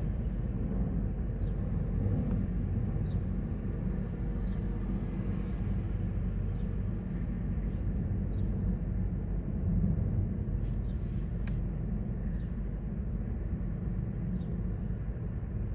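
Steady low outdoor rumble of background noise, with a few faint clicks about halfway through and again a little later.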